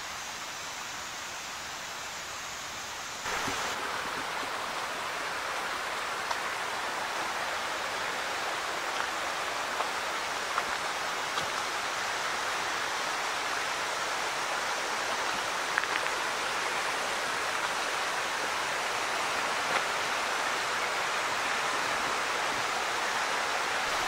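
Shallow rocky creek running over stones, a steady rush of water with faint splashing ticks. It becomes louder and fuller about three seconds in.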